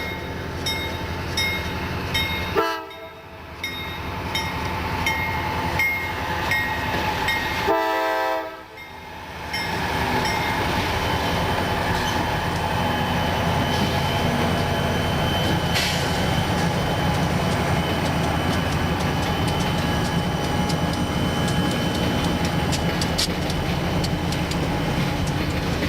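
Freight train at a grade crossing: a crossing bell dings steadily, the locomotive's air horn sounds twice, about three seconds in and again about eight seconds in, and then the train runs past with a steady rumble and clatter of wheels on the rails.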